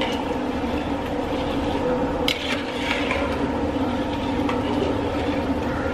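Perforated metal ladle stirring rice through boiling water in a large aluminium pot, with watery sloshing and scraping against the pot over a steady background rumble. One sharp clink of metal on metal about two seconds in.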